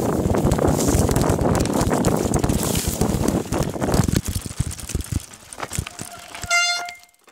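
Mountain bike rattling and clattering down a rough dirt trail, with wind buffeting the microphone. The noise thins out after about four seconds, leaving a few knocks, and a brief steady squeal sounds near the end.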